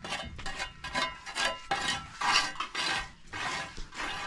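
A quick run of short scraping or rustling strokes, about three a second, with no speech over them.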